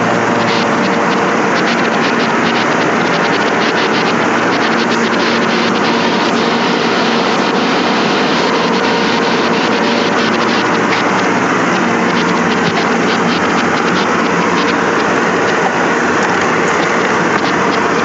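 Tube ice machine running: a steady, loud machinery noise with a constant hum, and light irregular ticking over it.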